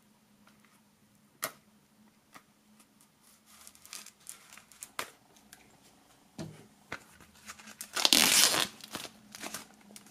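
Plastic shrink-wrap being torn and peeled off a CD digipak, crinkling in bursts, with one loud tear about eight seconds in. A single sharp click comes near the start.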